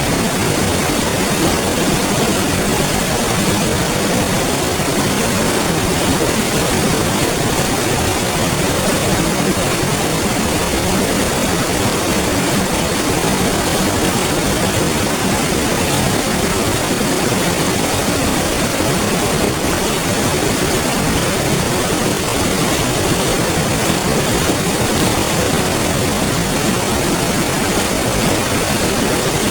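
Clear river flowing, a steady, even rush of water.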